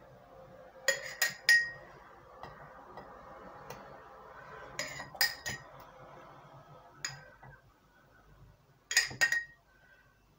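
Metal spoon clinking against a glass jar and a stainless steel pot while nectarine halves in syrup are ladled into the jar. The clinks come in clusters of two or three sharp, ringing strikes a few seconds apart.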